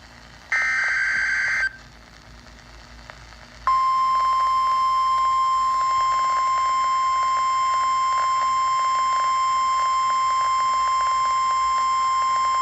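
Emergency Alert System flash flood warning tones: a burst of the screechy digital header data, then after about two seconds a single steady attention tone, the weather-radio kind, that holds for about nine seconds and cuts off sharply.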